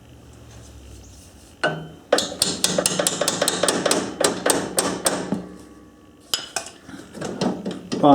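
Quick run of light hammer taps on metal as a part of a ride-on mower's gear-select linkage is tapped into place, about four or five taps a second. The taps start about a second and a half in, pause, and a few more come near the end.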